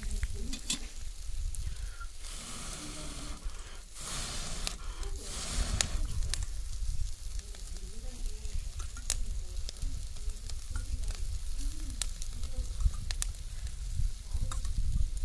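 Chicken pieces sizzling over hot charcoal on a small portable grill, with scattered sharp crackles and pops. The hissing grows louder for a few seconds about two to six seconds in.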